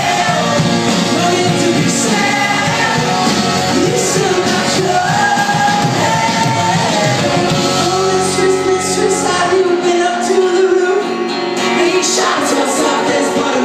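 Indie rock band playing live with lead and backing singing, amplified through a club PA and picked up from within the crowd. The deep bass drops away about nine or ten seconds in, leaving held singing over guitar.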